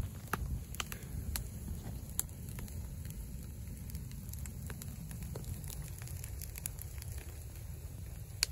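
Campfire of twigs and branches burning, with sharp pops and crackles scattered over a steady low rumble. The louder pops come right at the start, about two seconds in, and near the end.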